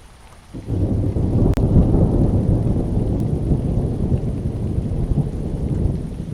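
Thunder rumbling over steady rain: a low rumble starts suddenly about half a second in, rolls on for several seconds and eases off near the end.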